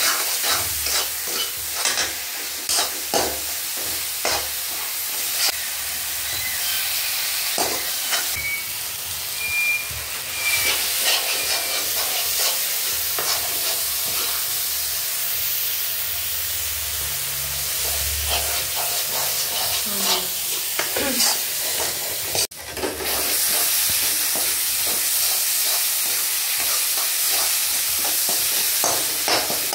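Onion-tomato masala frying and sizzling in a metal kadhai while a metal spatula stirs it, scraping and clicking against the pan again and again. The sound drops out briefly about two-thirds through.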